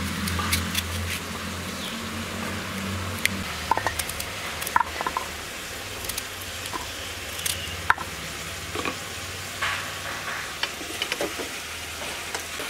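Vegetables sizzling as they sauté in oil in a kadai: a steady frying hiss broken by scattered sharp clicks and taps, over a low hum that fades after the first few seconds.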